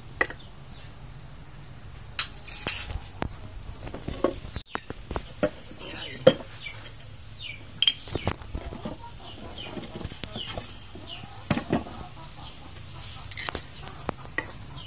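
Irregular sharp metal clinks and knocks as engine parts, tools and a small tin of valve grinding compound are handled on a steel workbench, with short bird calls in the background.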